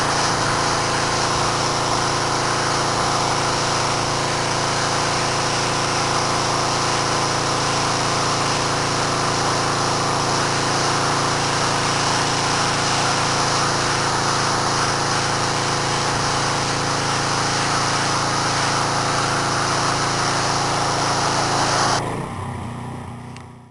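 Gas pressure washer's engine running steadily under the hiss of the high-pressure water jet blasting dirt off concrete. The sound drops off and fades away near the end.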